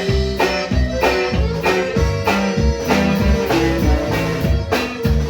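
Live band music: guitar and bass over a steady drum beat, about three beats a second.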